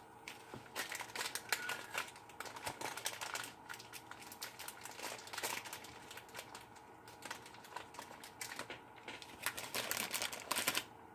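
Rustling of plastic and light clicking of small Meccano pieces and screws being picked through and handled, thinning out for a couple of seconds midway.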